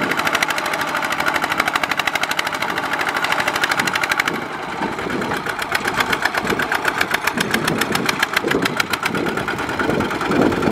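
Single-cylinder diesel engine of a two-wheel walking tractor running hard with a fast, even chug while hauling a trailer loaded with rice sacks, its drive wheels spinning in mud.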